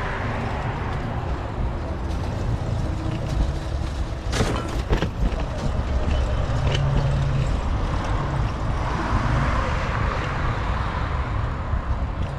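Road traffic heard from a moving bicycle, with wind rumbling on the microphone. Two sharp clicks come about four and a half seconds in.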